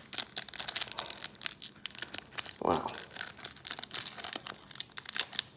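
The wrapper of a silver pack of baseball cards being torn open and crinkled by hand: a dense run of crackling through the whole stretch, with a short spoken "wow" near the middle.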